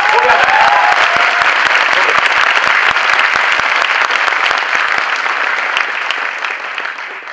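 Audience applauding, a dense sustained clapping that dies away near the end. A voice calls out briefly over the clapping in the first couple of seconds.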